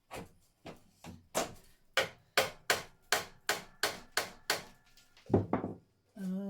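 Soft-blow hammer striking a seized bolt over and over, about three blows a second, to drive it through; the last couple of blows, about five seconds in, are the loudest.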